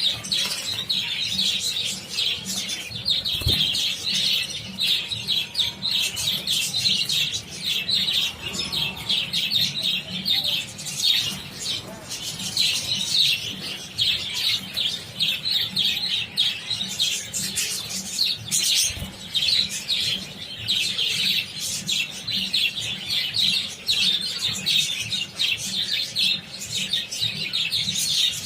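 A large flock of budgerigars chirping and chattering without pause, many birds calling over one another. Two thumps stand out, a few seconds in and again past the middle.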